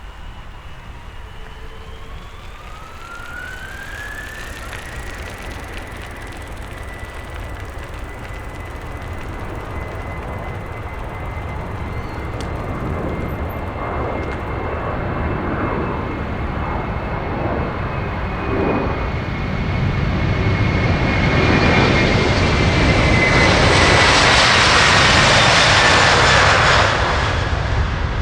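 Jet airliner's engines growing steadily louder as it approaches and passes. A whine rises in pitch in the first few seconds, then holds. Near the end the whine drops in pitch and the noise falls away as the aircraft goes by.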